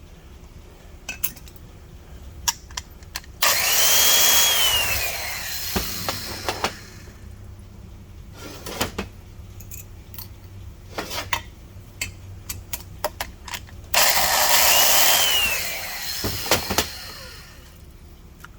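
Electric valve seat grinder, a Sioux, spinning a stone against a cylinder head's intake valve seat in two runs of about three seconds each. Each run is a high whine that drops in pitch as it goes. Sharp clicks and taps come between the runs.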